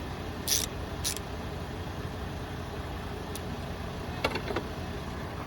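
A steady low rumble, like an engine idling in the background, with a few sharp metallic clicks from hand tools on the rocker-arm adjusting bolt and nut: two about half a second apart early on, then a short cluster about four seconds in.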